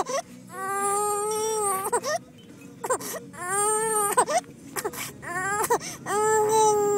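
Baby crying hard: three long wailing cries, each separated by quick gasping breaths. She is overtired and hungry, past her nap time with her bottle finished.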